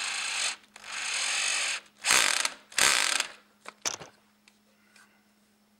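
Wood screw being driven through a stainless steel hinge leaf with a screwdriver: four grinding bursts of turning with ratchet-like clicking, then two short clicks as the screw seats.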